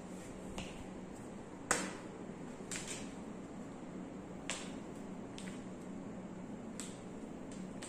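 Several short, sharp clicks or cracks from hands working on an arm during a massage, spaced irregularly. The loudest comes about two seconds in, over a steady low hum.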